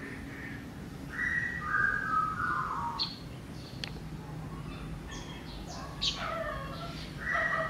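Bird calls: a call that steps down in pitch about a second in and again near the end, with short high chirps in between.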